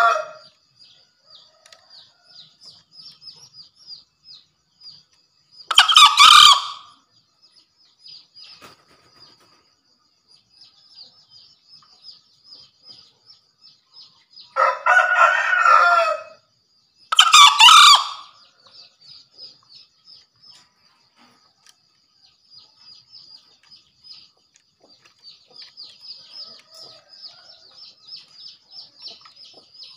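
Male green junglefowl crowing: three short crows, one about six seconds in and two close together about halfway through. A faint, fast, high-pitched chirping goes on underneath.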